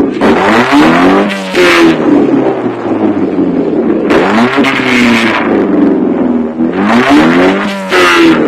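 A modified car engine is revved hard again and again, its pitch rising and falling about three times. Loud bursts of exhaust crackle and bangs break in as the revs peak and drop, the firing of an exhaust flame-thrower kit.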